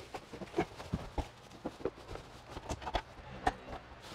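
Irregular knocks, thumps and rustles as a person clambers into a Hyundai Porter 2 double cab's rear cab and handles a corded heat gun, with the loudest knock about three and a half seconds in.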